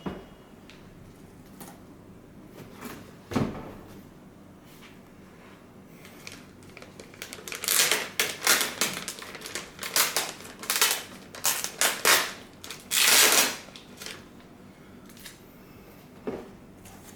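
Packaging being handled around a car stereo head unit: a couple of knocks, then a run of rustling and scraping bursts for several seconds, and a last light knock near the end.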